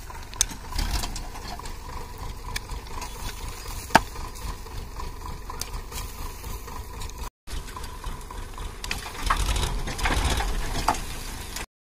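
A shovel prying and scraping at packed cow-dung manure in a tipped-up tractor trolley, with two sharp knocks of the blade against the trolley. Manure slides out and falls to the ground in a rush about a second in and again near the end.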